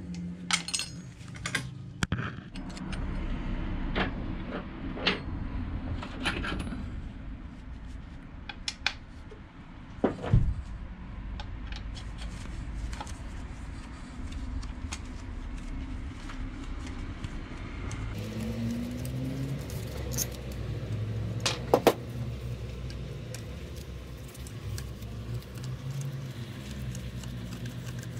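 Metal hand tools and small metal parts clicking and clinking irregularly during hands-on work on a motorcycle engine, with a heavier knock about ten seconds in.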